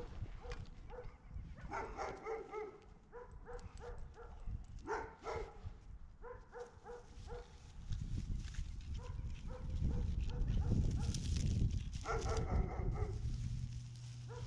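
A dog giving short high-pitched cries in several bursts, over a low rumble of wind or movement that swells in the middle.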